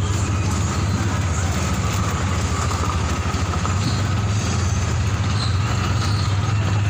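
Motorcycle engine of a tricycle (motorcycle with sidecar) running steadily with a low, even hum, heard from aboard while riding.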